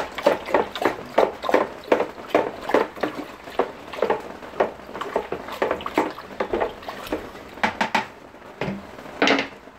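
Milky water being stirred in a plastic bucket with a wooden stick: quick, regular sloshing and scraping strokes, about two to three a second.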